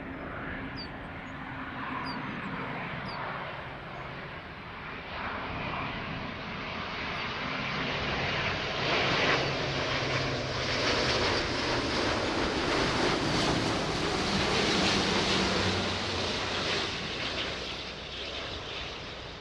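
Airbus A350-900's twin Rolls-Royce Trent XWB turbofans at approach power as the airliner flies low on final with gear down. A steady jet noise grows louder, peaks in the middle as it passes close, and eases slightly near the end.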